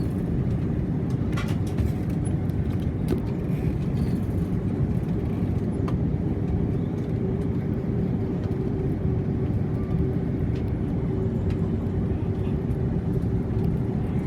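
Steady low rumble inside an Airbus A330-300 airliner cabin as it taxis after landing: engines and cabin air running, with a few faint clicks. A steady hum joins about halfway through.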